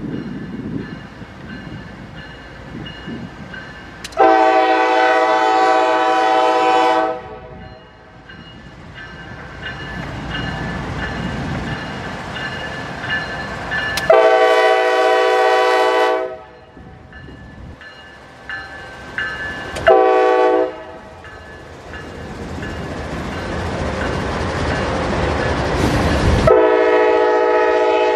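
Norfolk Southern freight locomotive's air horn sounding the grade-crossing signal: two long blasts, a short one, then a final long blast still held at the end. Under and between the blasts the train's rumble grows louder as it approaches.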